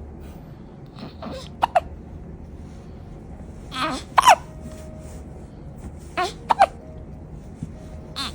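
A person hiccuping over and over: three hiccups about two and a half seconds apart. Each is a short intake followed by a sharp squeaky 'hic' that drops in pitch.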